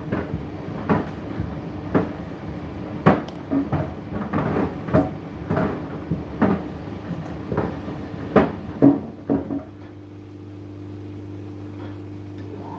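Indesit IDC8T3 condenser tumble dryer running: a steady motor hum under irregular knocks and thuds from the load tumbling in the drum, about one a second. The knocking stops about ten seconds in, leaving just the hum.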